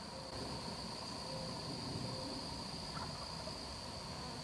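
Faint, distant wild turkey gobble, a male answering the hunter's call, heard over a steady high-pitched insect drone.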